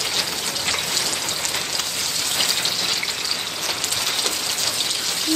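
Hot oil sizzling steadily in a nonstick frying pan, with fine crackling, as spiced pineapple slices on skewers fry.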